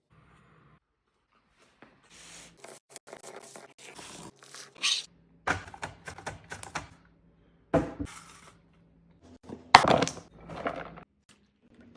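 Kitchen food-prep sounds: a run of scrapes, knocks and clatters of utensils and cookware, with a few sharper hits in the second half.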